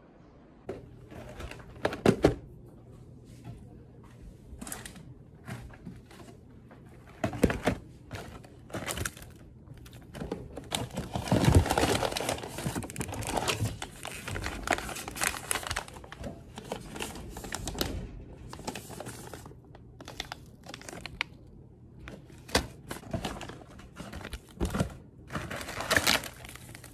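Plastic packaging crinkling and cardboard snack boxes being handled and torn open by hand: irregular rustles, tears and light knocks, densest a little before halfway through.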